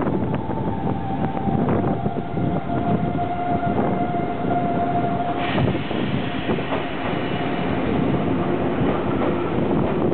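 JR Central 313 series electric train pulling into a station: a steady rumble with wheels clicking over the rail joints and a tone that falls slowly in pitch as the train slows, then higher, fainter tones in the second half.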